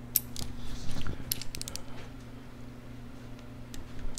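Wrench working the rocker box bolts on a Harley-Davidson Sportster engine: scattered sharp metallic clicks, with a quick run of several about a second in and a couple more near the end, over a steady low hum.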